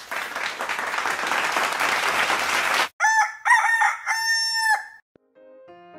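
Applause sound effect for about three seconds, cut off abruptly, followed by a rooster crowing in three pitched calls. Soft music starts near the end.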